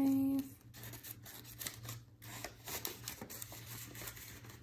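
Paper banknotes and paper cash envelopes rustling and rubbing as they are handled and shuffled, with small scattered clicks and crinkles.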